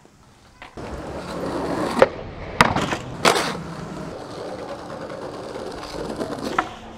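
Skateboard wheels rolling over rough pavement, with three sharp clacks of the board hitting the ground about two to three seconds in, then steady rolling again.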